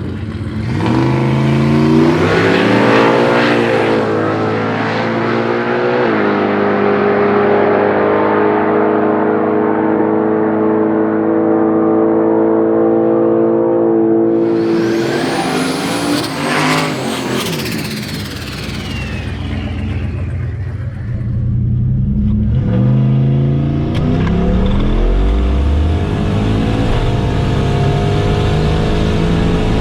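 Turbocharged LS V8 drag car accelerating hard, its pitch climbing in steps through the gears and then holding steady. It passes loudly about halfway through with a falling pitch, and a second hard acceleration follows later.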